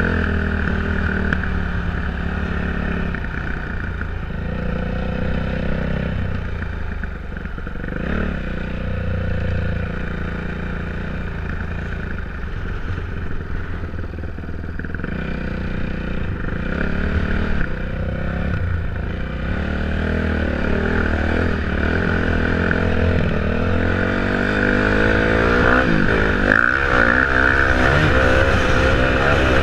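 2008 Yamaha YZ450F's single-cylinder four-stroke engine running under way on sand. The revs rise and fall with the throttle, getting louder with quick rises and drops near the end.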